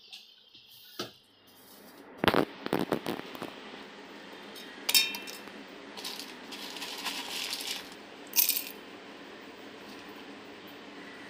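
Whole spices (cardamom pods, cinnamon pieces, cloves, star anise) dropped into a stainless-steel mixer-grinder jar: a quick clatter of small hard pieces about two seconds in, then single sharp metallic pings near the middle and again near the end.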